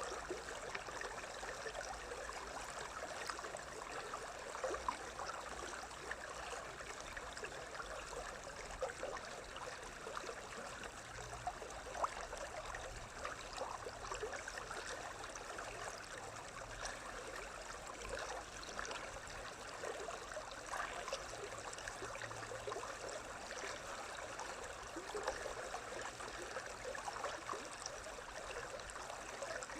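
A stream running: a steady rush of water with many small splashes and gurgles.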